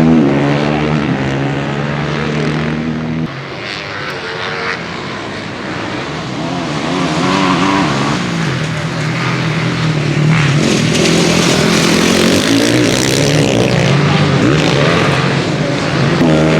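Several supermoto race bikes' single-cylinder four-stroke engines revving up and down as they run on the track. The level drops sharply about three seconds in.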